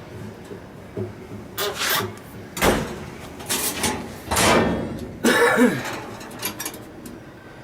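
Handling noises: several short knocks and rubbing sounds, with one heavy thump about two and a half seconds in and a brief low murmur a little after five seconds.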